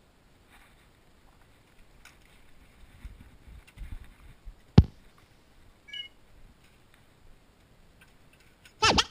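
Faint rustling and handling noises with one sharp click about halfway through. Right at the end, the first quick back-and-forth strokes of a vinyl record being scratched on a turntable begin.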